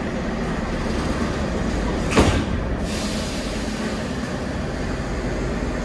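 81-718/719 metro train running, a steady noise of the moving train, with one sharp clank about two seconds in.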